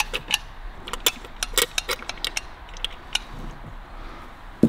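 Harley-Davidson WLA three-speed gearbox being turned over by hand as it is oiled: irregular metallic clicks and ticks from the gears and shafts, several a second.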